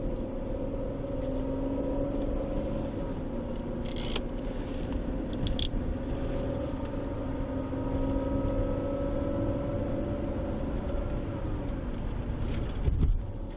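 Patrol car driving, engine and road noise heard inside the cabin, with the engine tone drifting slightly and a few short clicks. Near the end there is a low thump, and the running noise then drops away as the car slows.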